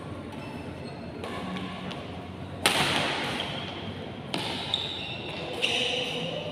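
Badminton doubles rally: several sharp racket strikes on the shuttlecock starting near the middle, with short high shoe squeaks on the court floor between them.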